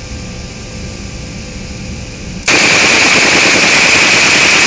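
Submachine gun firing on full automatic in one long continuous burst, starting suddenly about halfway through with the trigger held down. Before it, only a steady low background hum.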